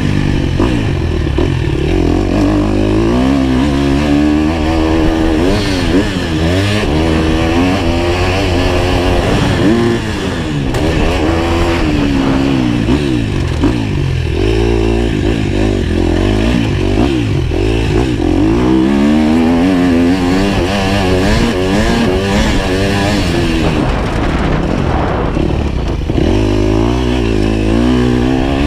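GasGas motocross bike's engine being ridden hard on a dirt track, revving up and down over and over, its pitch climbing and dropping with the throttle and gear changes.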